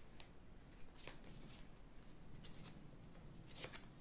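A deck of playing cards shuffled by hand: a few faint, soft clicks of cards slipping against each other, about one a second.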